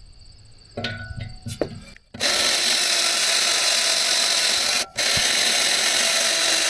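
Power drill boring a lubricated bit into the thick metal of a boat trailer frame: a few light handling knocks, then from about two seconds in the drill runs steadily under load, pausing for a moment about halfway through before carrying on.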